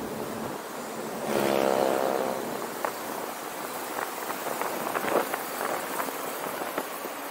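City traffic heard from a moving car: steady road and wind noise. About a second in, a passing vehicle's engine rises loud for about a second, with a strong pitched tone. A few scattered clicks and knocks follow.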